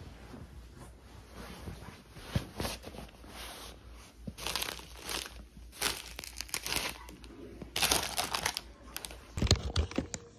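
Plastic bags and bubble wrap crinkling and rustling in irregular bursts as packed items are handled and pulled out of a suitcase.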